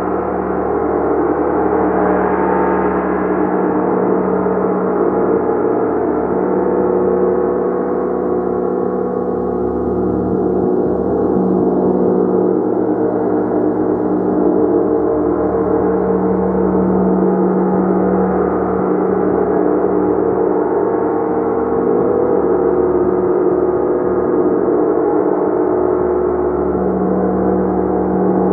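A gong played continuously: a dense, steady wash of many overlapping ringing tones, with no separate strikes standing out.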